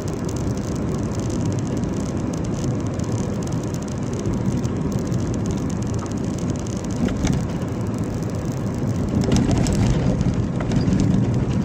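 Steady engine and tyre noise of a moving car heard from inside the cabin, a little louder near the end.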